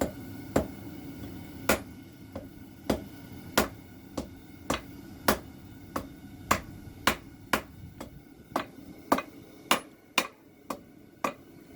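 Hand hammer striking hot file steel on an anvil in steady, ringing blows, about two a second. The tip of a knife blade is being forged back on itself to keep it from forming cold shuts or a fish mouth.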